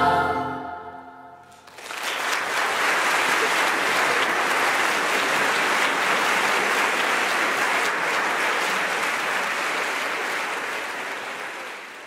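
A massed school choir's final held chord dies away, then about two seconds in the audience breaks into steady applause, which fades out near the end.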